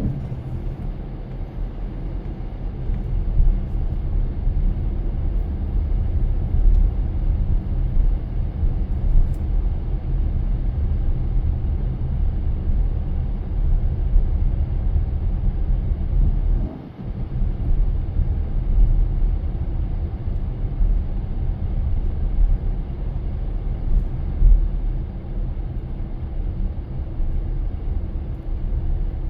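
Car driving, a steady low rumble of engine and road noise as heard inside the cabin, with a brief sharp dip in level about two-thirds of the way through.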